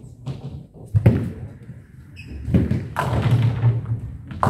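Nine-pin bowling balls on wooden lanes: a sharp thud about a second in as a ball lands, then from about two and a half seconds a longer low rumble with clatter, a ball rolling and striking pins.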